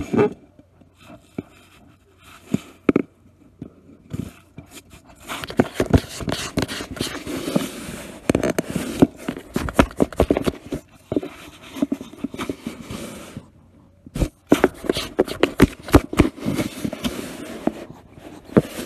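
A cat clawing and scrabbling at a cardboard box: irregular scrapes, scratches and knocks on the cardboard, sparse at first and busy from about five seconds in, with a short pause near fourteen seconds.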